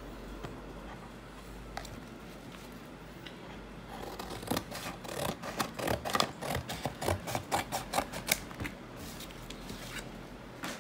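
Scissors snipping through thin cardboard from a flattened box. It is quiet at first, then a quick run of short crisp cuts starts about four seconds in and thins out near the end.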